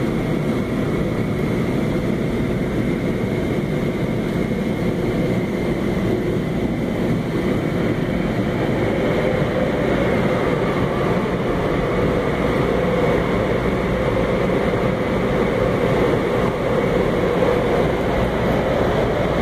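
Automatic car wash tunnel machinery running, a loud, even rush of noise with a faint steady high whine, heard through a glass window.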